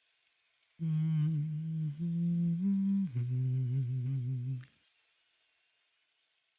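A man humming a slow tune in a low voice, holding wavering notes that step up and down in pitch, from about a second in until past the middle; then quiet, with a faint high whine underneath throughout.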